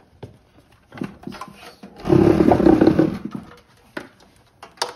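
Scattered light clicks of speaker wires being handled and pushed into a receiver's rear speaker terminals. About two seconds in comes a loud, rough rubbing noise lasting over a second, as of the close-held camera's microphone rubbing against clothing.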